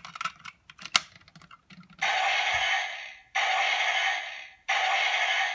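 Sharp plastic clicks of a Kyutama ball being loaded into the DX Kyurenoh toy robot. Then, about two seconds in, the toy's speaker plays a hissing electronic sound effect in bursts about a second long, three times with short gaps.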